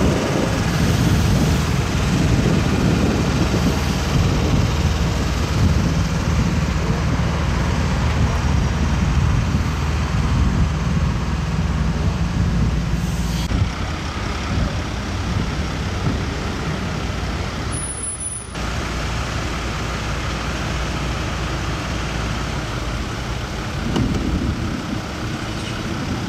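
Heavy-haul truck convoy pulling a multi-axle modular trailer slowly past: a diesel engine running with a low steady drone and tyre and chassis rumble from the rolling wheels. About halfway through the sound changes abruptly to a more distant, lighter running noise as the convoy moves away.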